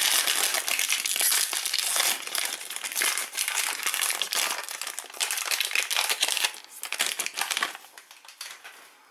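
Shiny foil wrapper of a Panini Prizm basketball card pack crinkling and crackling as it is worked open by hand. The crackle is dense for about seven and a half seconds, then thins to a few soft rustles near the end.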